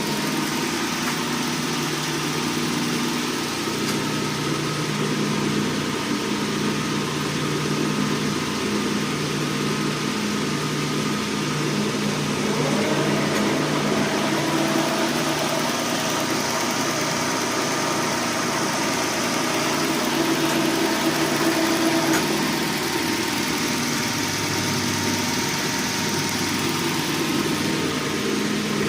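Hendey metal lathe running steadily under power with its repaired clutch engaged, giving a continuous machine hum.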